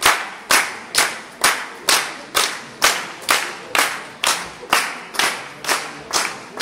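Rhythmic clapping in unison, about two claps a second, each clap echoing in the large hall.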